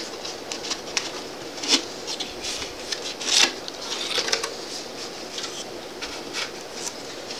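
Cardboard box being opened by hand: a run of short scrapes, rubs and taps as the flaps and tape are worked loose, with a longer scrape about three and a half seconds in.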